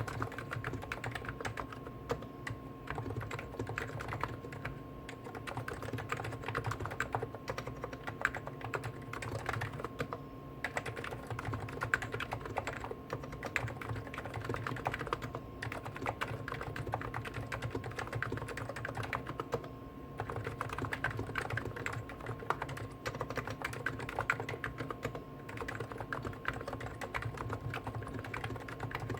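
Fast, continuous typing on two Hansung GTune electrostatic capacitive keyboards at once, a CHF4 Snow White with 50 g switches and a CHF7 Office Master with 55 g switches. The keystrokes run together, with a few brief pauses.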